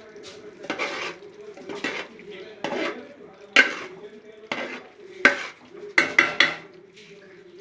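A spoon stirring curry in a cooking pot: about ten sharp clinks and scrapes of spoon on pot at uneven intervals, the loudest about three and a half seconds in.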